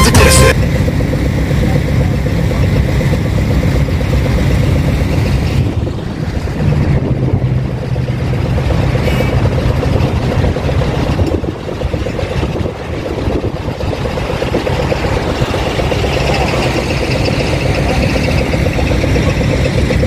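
Electronic music cuts off about half a second in, giving way to a heavy diesel engine idling steadily.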